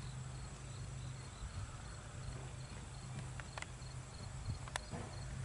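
Faint outdoor ambience: insects chirping steadily over a low steady hum, with a few faint clicks of a Belgian draft horse's hooves walking on a gravel lane.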